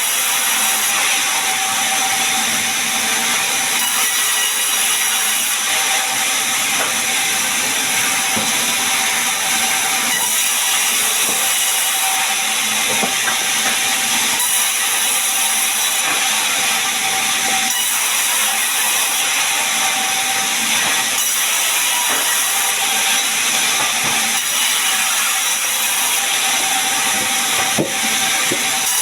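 Sawmill saw cutting a gmelina log into boards: a steady, loud, hissing whine with a constant tone and a few faint knocks.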